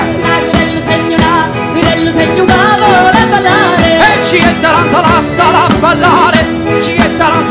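Live Salento folk dance music from a band on stage: percussion keeps a steady, even beat under a wavering lead melody with vibrato.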